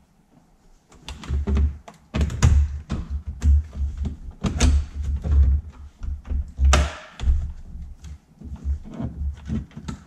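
Porsche 997 center-console plastic trim panel being worked and pulled free by hand: a string of irregular thunks, knocks and clicks as the panel and its trim clips are pried loose.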